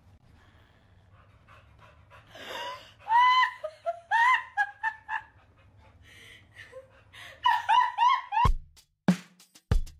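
A woman's high-pitched shrieking laughter in short bursts that rise and fall. Near the end it gives way to a few heavy drum-machine beats.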